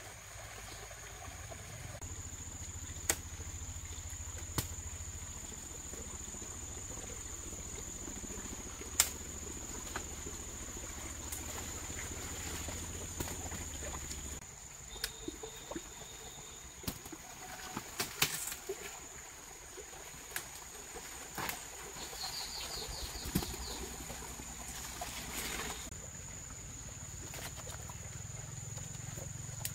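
Outdoor rural ambience: a steady high-pitched insect drone, scattered clicks and snaps, and a low rumble that drops away about halfway through. A short, rapid chirp comes about three quarters of the way in.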